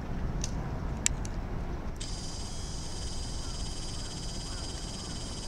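Harbour ambience: a low steady rumble, with a sharp tick about a second in and a high, even buzz that sets in abruptly about two seconds in.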